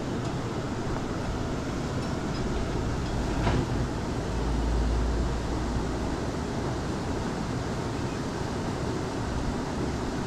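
Steady rush of flowing river water, with a heavier low rumble of wind on the microphone about four to six seconds in.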